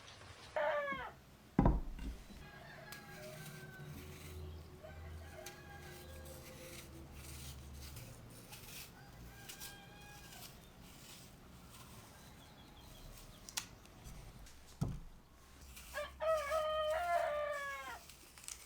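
A rooster crowing: a short call just after the start and a longer full crow near the end, with fainter calls in between. A sharp knock sounds about a second and a half in and another near the end.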